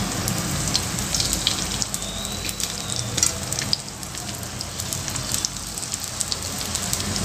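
Marinated seer fish steaks sizzling in shallow oil on an iron dosa tawa, a steady hiss with frequent small crackles and pops.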